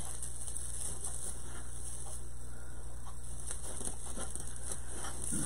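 Faint light rustling and ticking of deco mesh being worked by hand onto a wreath frame, over a steady low hum and hiss.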